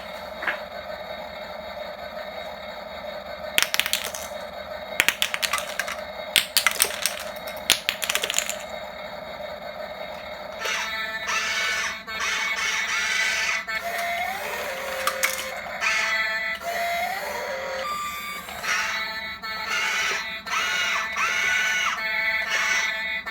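Radio-controlled excavator's electric motors whining steadily, with bursts of rattling and clatter about four to eight seconds in. From about halfway the whine grows louder and changes, its pitch shifting up and down in short sweeps.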